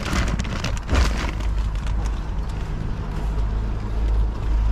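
Car engine running at a steady idle, a low rumble. A few knocks and rustling sound over it in the first second or so.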